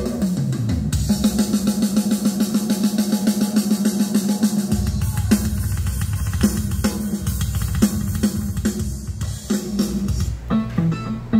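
A drum kit track played loud through UAP K210 line array loudspeakers: a steady beat of kick, snare, hi-hat and cymbals. A deep low end comes in about five seconds in, and near the end the beat breaks into sparser, separate hits.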